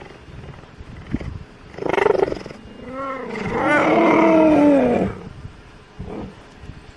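Cheetah calling: a short rough call about two seconds in, then a longer, louder call from about three to five seconds that rises and then falls in pitch, and a faint short call near the end.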